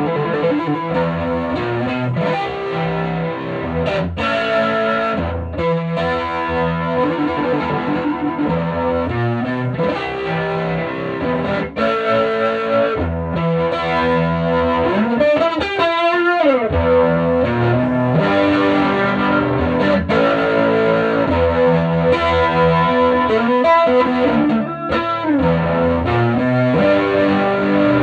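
Electric guitar played through a 1965 WEM Control ER15 valve amplifier head (push-pull EL84 output, ECC83 preamp valves), with strummed chords and riffs and a pitch swoop up and back down about halfway through.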